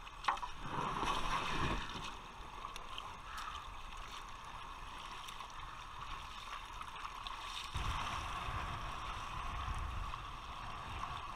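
River water rushing and splashing around a kayak. From about eight seconds in, a low rumble of wind buffeting the microphone joins it.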